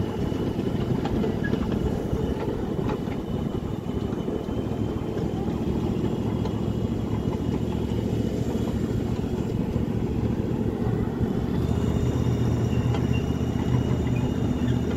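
Riding-scale miniature train running along its track: a steady rumble from the running gear and drive, with a thin steady whine above it. About twelve seconds in, a deeper hum comes up and it grows a little louder.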